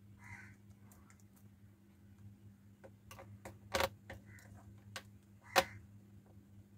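Faint clicks and ticks of a small screwdriver driving the screw that holds a laptop keyboard in place, with two sharper clicks about four and five and a half seconds in. A steady low hum runs underneath.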